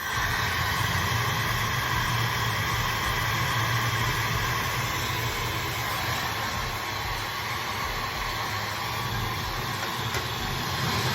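Laifen Swift high-speed hair dryer running steadily: a constant rush of blown air with a faint high whine.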